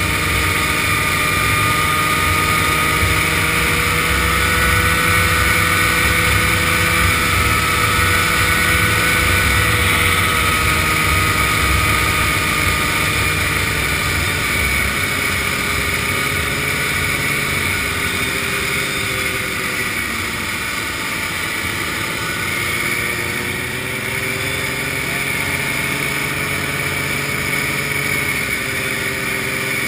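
Vintage snowmobile engine running at a steady cruising speed, its pitch drifting slightly up and down, heard from the rider's seat with wind rushing over the microphone.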